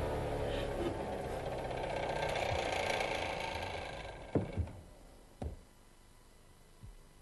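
Radial arm saw fitted with a dado head running down after switch-off, its whine falling in pitch and fading away over about four seconds. Then four short knocks as the wooden workpieces are handled on the saw table.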